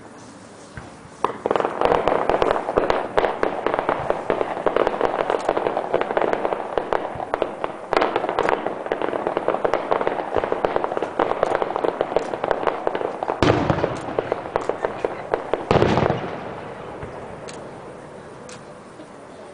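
Aerial fireworks going off: a dense run of rapid crackling bangs starts about a second in, with two heavier, deeper booms near the end of the barrage, then the crackle fades away.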